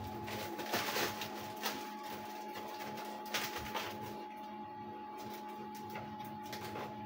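Cotton candy machine running with a steady electric hum from its spinning head, broken by a few short clicks.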